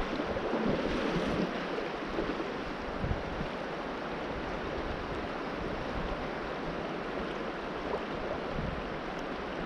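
Shallow river running over a stony riffle: a steady rush of moving water.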